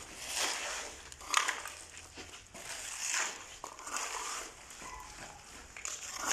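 Steel shovels scraping across a concrete floor as they turn a wet mix of soil, sand, cement and plastic waste, in repeated strokes about one a second.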